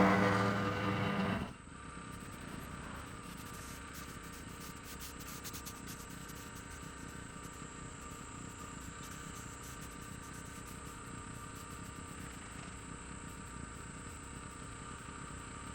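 Small compactor engine running, cut off abruptly about a second and a half in, leaving a faint steady hiss.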